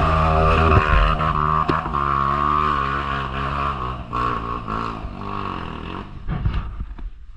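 Trail motorcycle engine running under throttle, its pitch rising and falling, fading out about six seconds in.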